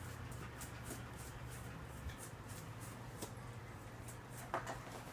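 Quiet room with a steady low hum and faint scattered ticks and rustles, with one slightly louder rustle about four and a half seconds in.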